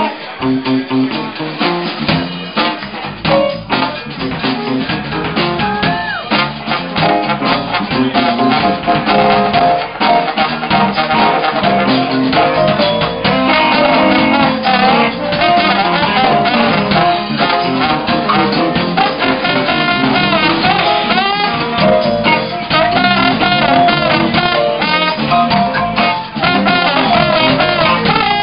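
Live funk band playing: a trombone plays lead lines over electric guitar and drum kit.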